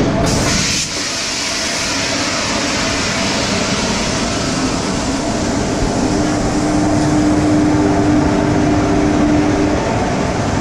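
Two WAG-7 electric locomotives passing at close range, a steady loud rumble and rattle of wheels and running gear. About six seconds in, a steady hum joins and lasts several seconds.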